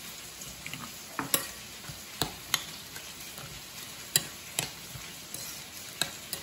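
A metal spoon stirring a thick soy and oyster sauce mixture in a ceramic bowl, with irregular sharp clinks of the spoon against the bowl over a soft wet swishing.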